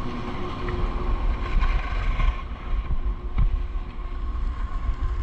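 Wind rumbling on the camera's microphone as skis glide over packed snow, with a steady faint whine underneath.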